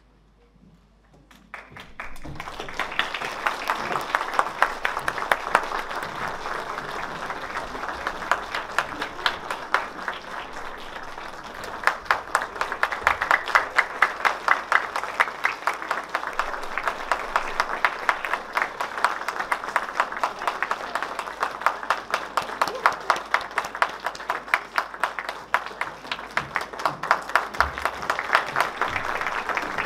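Audience applauding. It starts about two seconds in after a brief hush, and from about halfway sharper individual claps stand out.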